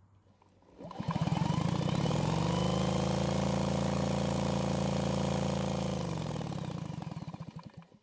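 Cordless drill spinning over the RedMax backpack blower's two-stroke engine for a spark test with a new ignition coil. The whine rises about a second in, holds steady, then winds down near the end, with the engine's strokes pulsing through it. The engine does not fire.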